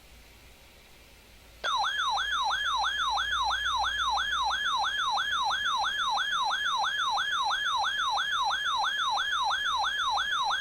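A weather radio receiver's alert alarm: a warbling siren tone that sweeps up and down about three times a second, starting about a second and a half in. It signals that a severe thunderstorm warning is coming in.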